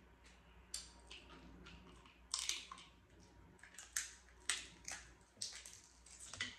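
Snow crab leg shells being cracked and snapped open, about eight sharp crackling snaps at irregular intervals.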